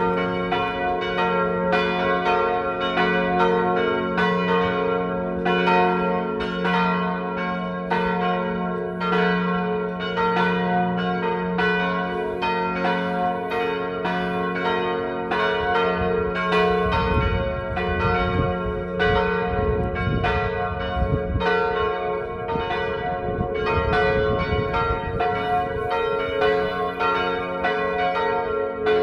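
Full peal of the church's swinging bells, tuned to G-flat, B-flat and D-flat, striking over and over in an uneven, overlapping rhythm, several strikes a second, each note ringing on under the next.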